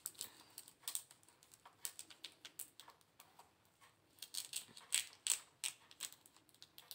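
Kitchen knife slitting the edge of a thin polythene bag, the plastic giving off irregular small crackles and ticks, densest around five seconds in.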